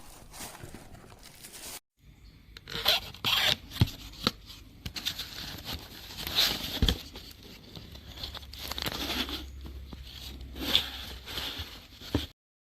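Irregular scraping and rustling with a few short knocks, broken by a brief dropout about two seconds in and cutting off suddenly near the end.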